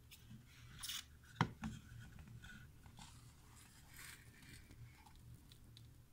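Faint handling noises of a small wooden hanging plaque and its jute twine cord being picked up: light rustling and rubbing, with one sharp tap about a second and a half in.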